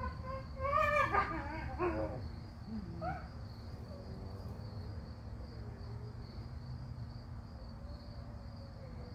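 Two dogs play-wrestling, one giving several wavering, whining calls in the first two seconds and one short call about three seconds in. A steady high insect buzz runs underneath.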